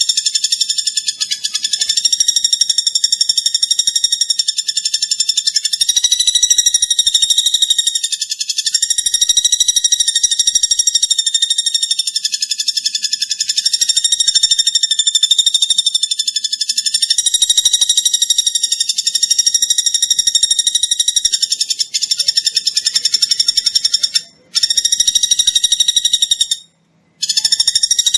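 Platuk bawang bird call: a high-pitched buzzing trill of very rapid repeated notes, wavering slightly in pitch and running on almost without pause, with two brief breaks near the end.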